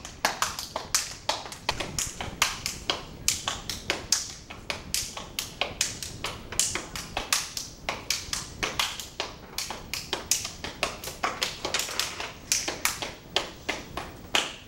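Step dancing: a rapid, rhythmic run of sneaker stomps and hand claps on a hard floor, several strikes a second.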